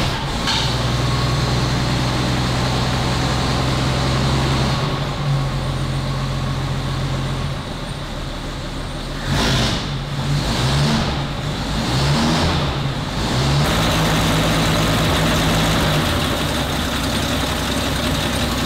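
1950 Pontiac Chieftain's flathead engine running just after starting from long storage. It idles steadily, its speed rises and falls a few times about halfway through, then it settles back to a steady idle.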